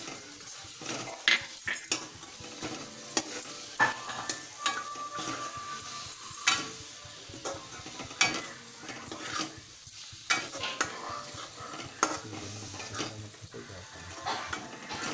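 Metal spoon stirring and scraping spiced grated potato stuffing in a metal kadai, with irregular clinks of the spoon against the pan over a steady frying sizzle.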